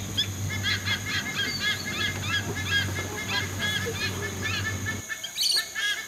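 A dense chorus of birds chirping rapidly over a low steady hum; the hum cuts out about five seconds in, and a harsh screech follows, in keeping with rainbow lorikeets.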